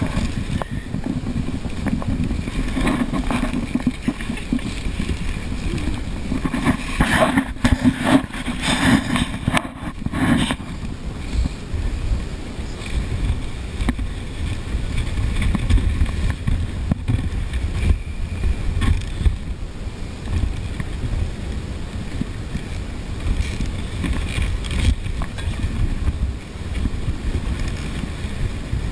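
A dog sled running over snow: a steady scraping rumble from the runners on the track, with wind buffeting the microphone. A cluster of louder knocks comes around eight to ten seconds in.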